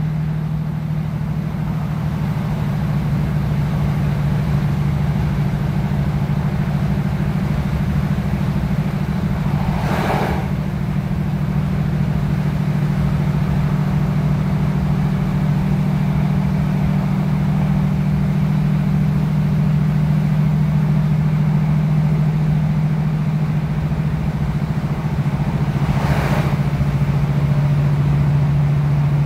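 Saloon of a British Rail Class 156 Super Sprinter diesel multiple unit running at speed: a steady low drone from the coach's underfloor six-cylinder Cummins diesel engine and running gear. Two brief rushing sounds pass, about ten seconds in and again near the end.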